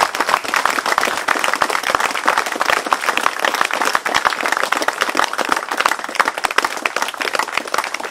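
A crowd applauding: dense, steady hand-clapping from many people.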